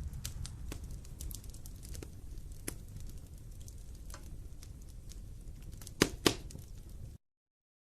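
Scattered crackles and sharp clicks over a low rumble, with two louder clicks close together about six seconds in; the sound then cuts off abruptly to silence.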